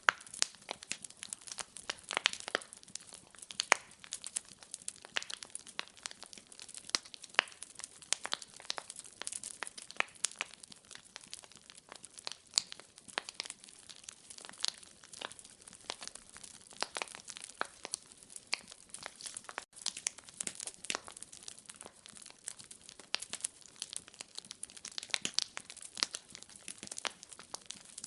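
Wood fire burning in a fireplace, crackling with frequent irregular sharp pops and snaps over a faint hiss.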